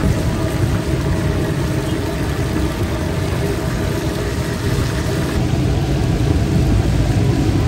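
Fish deep-frying in a large karahi of hot oil: a steady sizzling and bubbling over a low rumble from the gas burner beneath.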